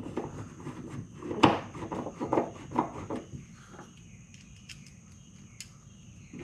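A run of light clicks and knocks, the sharpest about a second and a half in, then a few faint ticks: a plastic interior trim panel being handled as its screws are started by hand with a screwdriver.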